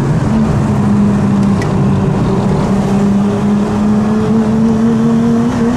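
Straight-piped Nissan RB25DET turbocharged inline-six, heard from inside the car, running under load. The engine note jumps up just after the start, then holds and climbs slowly as the revs rise.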